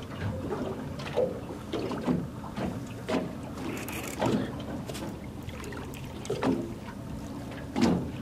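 Open-sea water slapping and washing against the side of a slow-moving boat, in uneven surges every second or so, with wind on the microphone.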